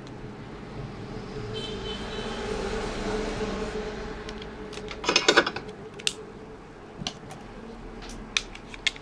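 Sharp plastic clicks and taps from handling an opened BlackBerry: its SIM card being pushed into the slot and its battery being picked up. A quick cluster of clicks comes about five seconds in, then single clicks. Behind them a background rush swells and fades over the first half.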